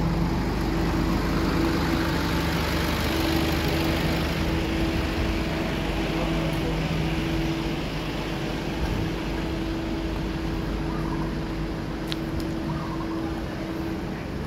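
Steady mechanical hum of a parked light truck running, a low even drone that eases slightly about halfway through.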